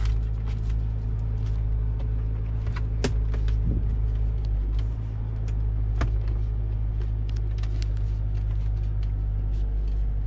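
Steady low drone of the Jeep Wrangler's engine running, heard inside the cabin. Over it come scattered sharp plastic clicks and taps as the head unit and dash bezel are pressed and snapped into place, the loudest about three and six seconds in.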